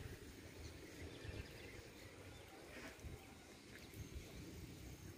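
Faint outdoor ambience by a still river: a low, uneven rumble and light hiss, with a few tiny faint sounds in the distance.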